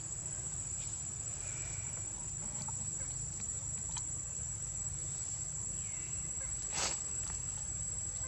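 Steady high-pitched insect drone, one unbroken tone, over a low background rumble, with a sharp click about seven seconds in.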